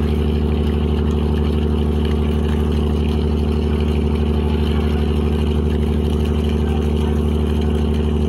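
A ship's engine running steadily at an even speed: a loud, constant low drone with a fast, regular throb.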